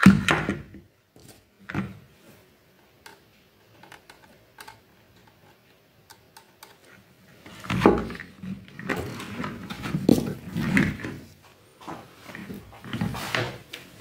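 Plastic housing and parts of an opened electric fan heater being handled: a sharp knock at the start and another just under two seconds in, a few light clicks, then from about halfway on several seconds of irregular clattering and rubbing of plastic.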